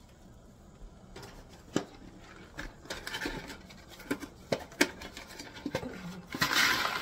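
Pot of water on an electric stovetop coming back to the boil: scattered ticks and pops of bubbling water that grow denser, rising to a louder hissing bubble near the end.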